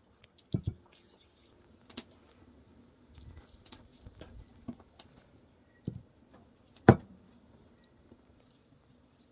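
Scattered knocks and light taps of hands working with kitchen utensils and dishes, with a close pair of knocks near the start and one sharper, louder knock about seven seconds in.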